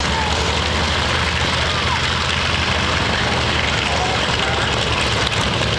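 North American T-28 Trojan's radial engine running at taxi power, a steady low rumble with propeller noise.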